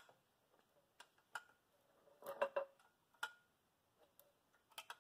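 Faint, scattered clicks and ticks of a 5/16 wrench working a small compression fitting on an oil pressure gauge line as it is snugged up, with a small cluster of clicks about halfway through.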